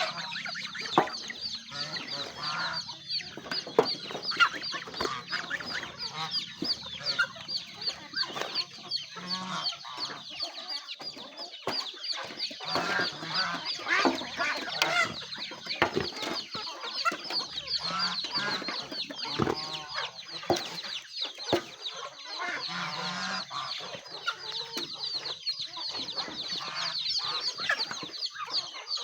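Flock of chickens clucking over a constant chorus of high, rapid peeping, with many short taps scattered through.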